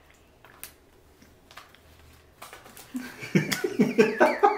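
A few faint clicks at first, then a woman and a man break into laughter about three seconds in.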